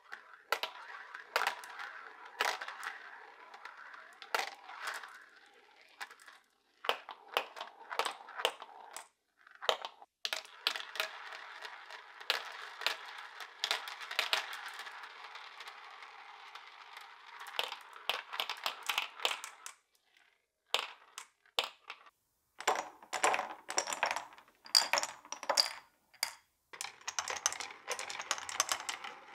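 Marbles rolling round plastic vortex funnels: a steady rolling whir broken by many sharp clicks as they knock together and drop through the hole. In the last few seconds, marbles click and clatter down a wooden spiral track.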